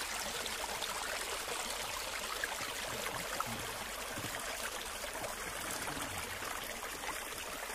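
Water running steadily down a narrow ditch, churning over a small snag in the channel.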